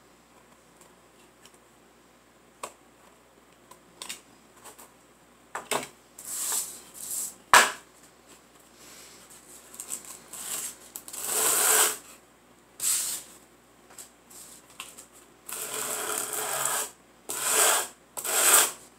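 Hand sanding: a small wooden dollhouse stove piece is rubbed back and forth on a sheet of sandpaper laid flat on a table, making scratchy strokes of uneven length that start about six seconds in. Light taps come before the strokes, and there is one sharp knock of wood on the table shortly after they begin.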